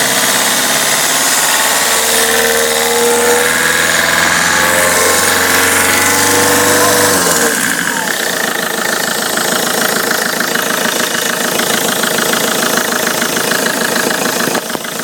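Peugeot 307 2.0 HDi 136 diesel engine held at raised revs, then dropping back to idle about halfway through and idling with a rapid rhythmic clatter. This is an abnormal noise whose cause the owner cannot identify.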